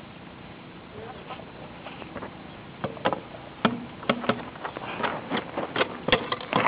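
Irregular sharp clicks and knocks of ABS plastic sewer pipe and fittings being handled and fitted together after gluing, starting about three seconds in and coming faster near the end.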